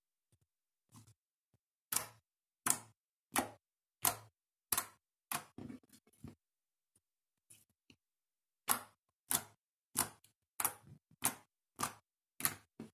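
Fingertips poking a flattened disc of lipstick-tinted clear slime, each poke a sharp pop of trapped air. The pops come at an even pace, about three every two seconds, in two runs of about seven with a pause of about two seconds between them.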